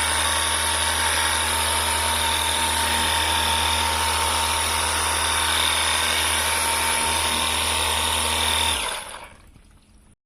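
Battery-powered portable pressure washer running steadily, its electric motor and pump giving a high whine over a hiss, with the nozzle set to a direct jet. It shuts off near the end.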